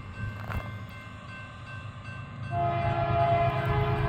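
Low rumble of an approaching freight train, then about two and a half seconds in the BNSF locomotive's multi-chime air horn comes in loud and steady, a chord of several tones with a goofy sound.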